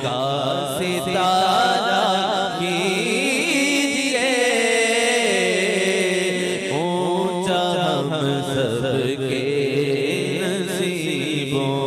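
A man singing a naat, an Urdu devotional song, solo into a microphone. He sings long, ornamented phrases with a wavering vibrato over a steady low drone.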